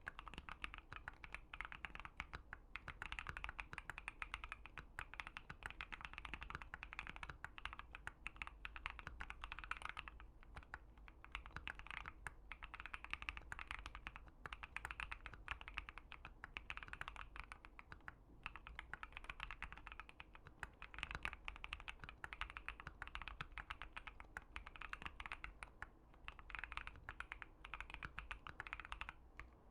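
Typing on a Keychron Q1 mechanical keyboard with Gazzew Boba U4T tactile switches on an FR4 plate: a steady, dense stream of key presses with a few short pauses.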